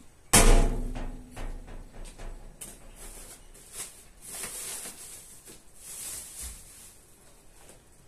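A sudden loud thump with a low rumbling tail, followed by scattered knocks and rustling noises.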